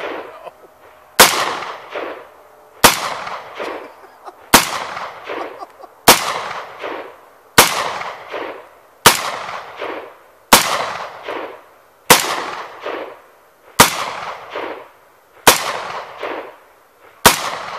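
AR-15 pistol with a 10.5-inch barrel firing 5.56 rounds in slow semi-automatic fire, eleven single shots about a second and a half apart. Each shot is a sharp, loud crack followed by a long rolling echo that fades before the next shot.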